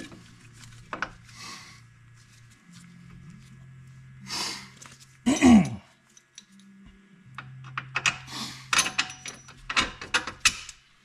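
Metal clinks, taps and thunks of a hand tool and bolts against a rear hub bearing assembly as it is fitted to the knuckle. There is one louder, short sound with a falling pitch about halfway through and a quick run of clicks near the end, over a steady low hum.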